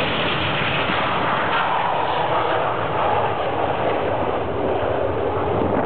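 BAE Hawk T1 jet trainers' turbofan engines running at high power as several take off together in formation: a loud, steady jet noise that drops away at the very end.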